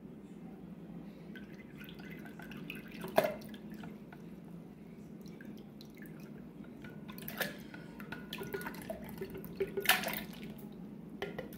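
Canned peach halves in syrup sliding out of a tin can and dropping into a glass blender jar, a few wet plops and drips. The sharpest lands about three seconds in, with more near the end, over a steady low hum.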